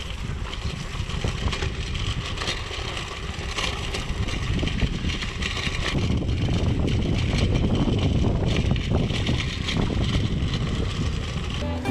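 Bicycle tyres rolling with wind buffeting the microphone while riding, a steady rumbling noise that grows louder about halfway through.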